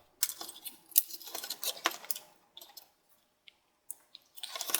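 Scattered light clicks and taps of small plastic and metal laptop parts and cables being handled, with a quiet stretch of over a second in the middle.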